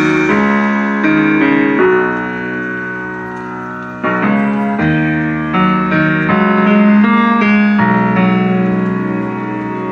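Music played through a TDA2050-based 5.1 speaker system: a keyboard passage of struck, held chords with no drums, each chord fading until the next is struck.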